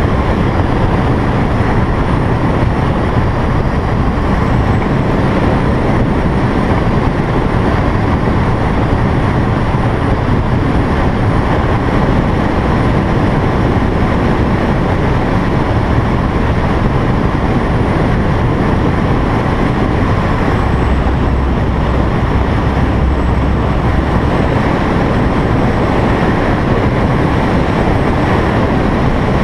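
Loud, steady rush of strong wind, with a deep rumble that swells a little about two-thirds of the way through.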